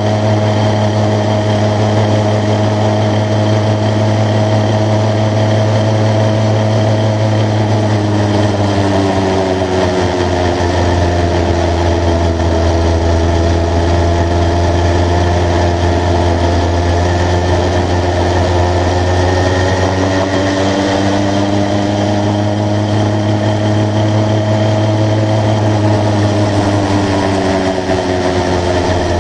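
80cc two-stroke motorised bicycle engine running continuously while riding, its note shifting in pitch as engine speed changes about nine seconds in, around twenty seconds, and again near the end.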